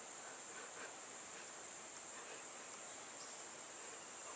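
Steady high-pitched chorus of insects, an unbroken shrill hum with a faint even background hiss beneath it.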